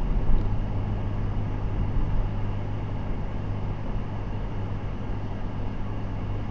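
Steady low rumble of engine and road noise inside a moving minivan's cabin at about 37 mph, with a brief knock near the start.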